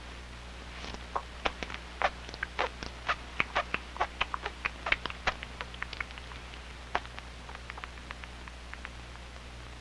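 A run of quick, irregular light clicks and taps, several a second, thinning out after about six seconds, over a steady low hum from the film's optical soundtrack.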